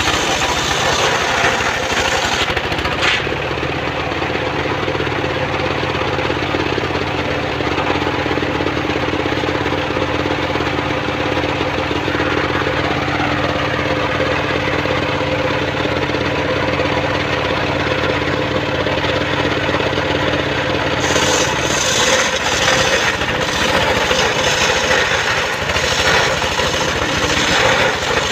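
Engine-driven homemade circular sawmill running and ripping a mahogany log lengthwise. A harsh, hissing cutting sound over the engine fades after about three seconds, leaving a steadier running hum. The harsh cutting sound comes back about seven seconds before the end.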